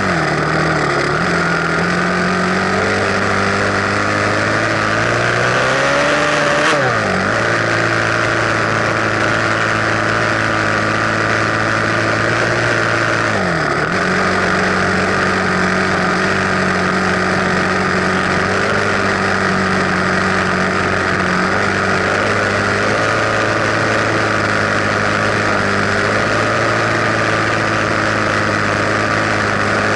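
Enduro dirt bike engine running at a steady cruise under way, heard close up. Its pitch climbs about six seconds in and then falls sharply, and dips and recovers again about thirteen seconds in, as the throttle or gear changes.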